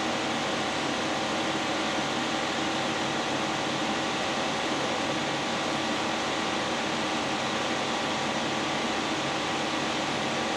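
Steady rushing of the electric engine cooling fan running at full speed, with the 1.4-litre turbocharged four-cylinder idling beneath it. The fan is maxed out because the mass airflow sensor has been unplugged with the engine running, which sets codes in the engine computer.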